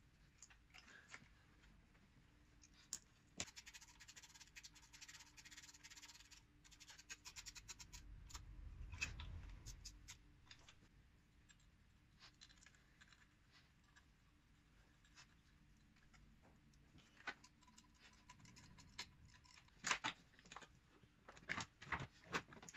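Faint clicks, knocks and scraping of plastic and metal engine-bay parts being handled and refitted by hand, with a low rumble about nine seconds in and a cluster of louder sharp clicks near the end. No engine is running.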